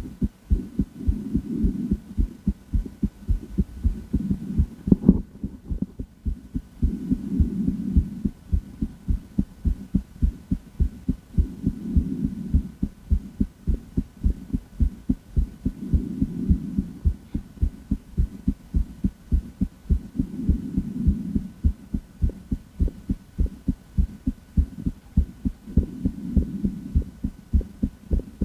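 A woman's heart beating, heard up close through a stethoscope on the chest: a steady run of low thumps. A softer swell of noise rises and falls every four seconds or so, and there is one sharper knock about five seconds in.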